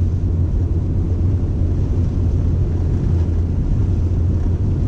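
A car driving on a snow-covered road: a steady low rumble of engine and tyres.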